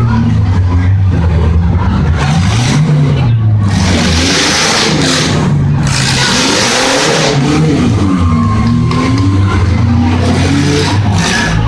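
Several demolition derby cars' engines revving hard, their pitches rising and falling over one another.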